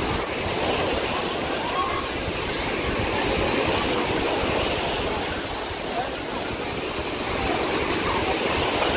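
Sea surf washing up onto a sandy beach in a steady rush, with the chatter of a beach crowd faint behind it.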